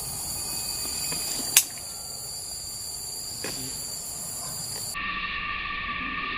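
Forest insects, cicadas or crickets, in a steady high-pitched chorus of several held tones, with one sharp click about a second and a half in. Near the end the chorus cuts abruptly to a different, lower set of steady tones.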